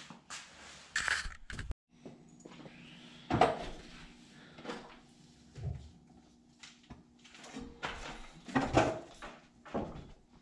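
Scattered knocks, clunks and scuffs as a man steps up onto a step stool and the top of a wood stove, about half a dozen in all, over a steady low hum.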